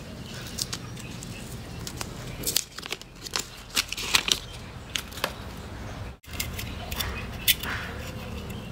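Plastic and paper wrapping being peeled and torn off a spool of flux-core welding wire: crinkling and tearing with many short, sharp crackles.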